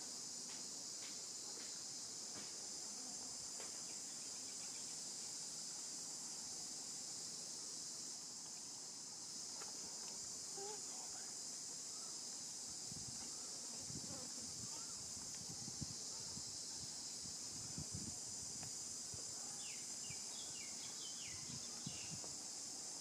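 A steady, high-pitched chorus of insects buzzing without a break. Faint low rustling comes and goes in the second half, and a few short high chirps sound near the end.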